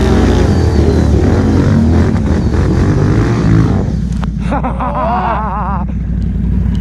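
ATV engine running hard under throttle in mud and wet grass, its pitch rising and falling with the revs. About four seconds in come a few sharp knocks, then a higher wavering, warbling tone for a second or so over the steady engine.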